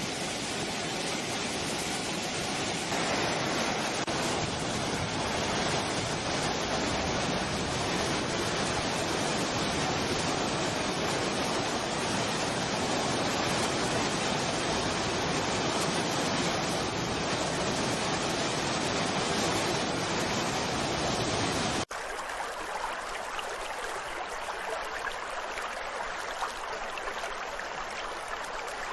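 Steady rushing of flowing water, like a waterfall or fast stream. About 22 seconds in it cuts abruptly to a thinner, lighter rushing with less low rumble.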